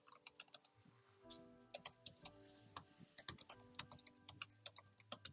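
Faint computer keyboard typing: irregular, quick keystroke clicks as a web address is typed in. Soft background music with sustained notes comes in about a second in.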